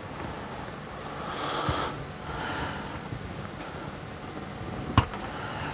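Quiet bonsai handwork: a breath out through the nose about a second and a half in, then a single sharp click near the end from the wire cutters snipping bonsai wire on the yew.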